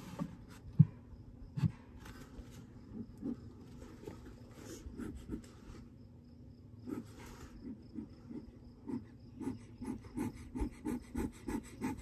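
Bellows of a stainless-steel bee smoker being pumped by hand, each squeeze pushing a short puff of air out of the nozzle. The puffs come a few at a time, then in a quick run of about two to three a second near the end. There are two dull knocks, the louder one about a second in.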